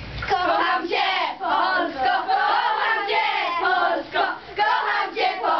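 A group of young girls singing together, lively and loud, with short breaks between phrases. It begins abruptly just after the start.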